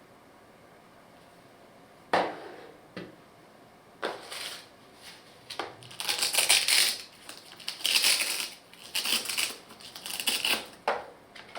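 Packaging being handled: a few sharp knocks, then from about halfway repeated bursts of crinkling and rustling.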